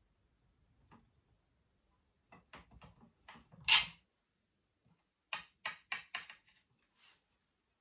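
Knife sawing through lemon bars and scraping on the glass plate beneath. There are several short strokes, the loudest about four seconds in, then a quick back-and-forth run of about five strokes a little later.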